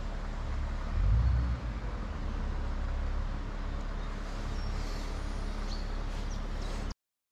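Steady outdoor rumble and hiss, heaviest in the low end, with a louder low swell about a second in and a few faint bird chirps around five seconds. The sound cuts off abruptly near the end.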